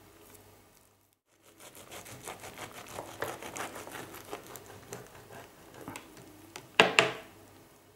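Knife sawing through a rolled wrap of crisp dehydrated dough packed with vegetables and sprouts, giving a run of rapid crunching crackles. About seven seconds in there is one louder crackle as the cut finishes.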